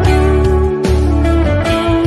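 Background music: a guitar melody of held notes over low bass notes.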